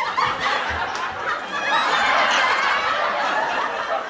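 Several people laughing and shrieking at once, a dense burst of overlapping voices that starts suddenly and dies away after about four seconds.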